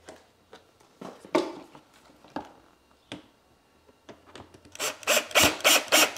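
Cordless drill driving a screw through a washer into a plastic bumper bracket in short repeated bursts, about five a second, near the end. Before that, hands handle the plastic parts with scattered clicks and rubs.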